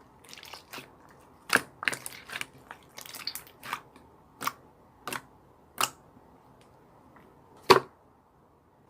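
A series of sharp, short crunches and clicks at irregular intervals, about a dozen in all, the loudest one near the end.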